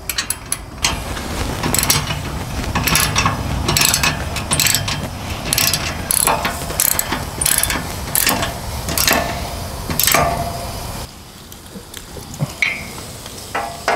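Ratchet socket wrench clicking in quick runs of strokes as it tightens an anti-wobble hitch bolt into the receiver. The clicking stops about eleven seconds in, leaving a few faint clicks.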